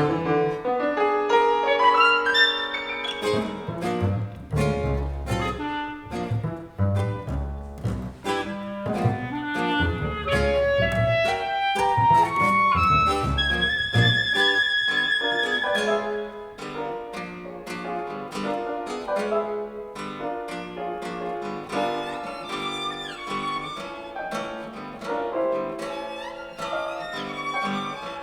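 Contemporary chamber ensemble of clarinet, violin, double bass, guitar and piano playing a new-music piece: many short plucked and struck notes at shifting pitches over low double bass notes. About halfway through, a high note is held for a couple of seconds, then the low notes drop out and the texture thins.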